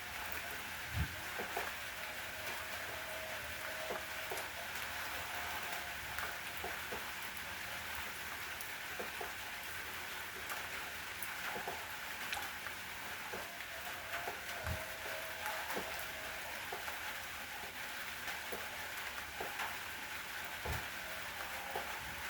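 Steady rain falling on a surface, with scattered drips ticking through it and three brief dull low thuds from heavier drops.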